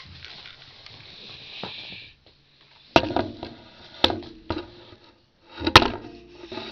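Camera handling noise: a rubbing hiss for about two seconds, then a string of knocks and bumps as the camera is picked up and moved against the rifle's scope, the loudest near the end.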